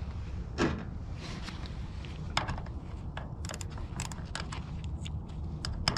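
Hand ratchet clicking in short, irregular runs as a socket is worked on a screw at a pickup's fuel filler neck, the clicks starting about two and a half seconds in.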